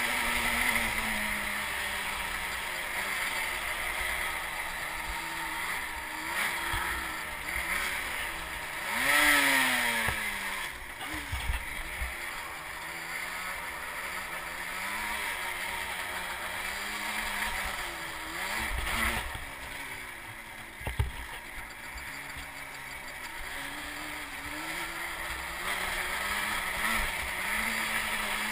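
ATV engine running under a rider's throttle, its pitch rising and falling as it revs up and eases off, with the biggest rev about nine seconds in. A few short knocks from the quad hitting bumps come through, the sharpest about twenty-one seconds in.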